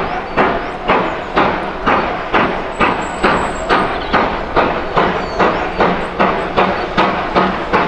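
GWR Modified Hall 4-6-0 steam locomotive working hard as it pulls a train away, its chimney exhaust beating evenly at a little over two chuffs a second.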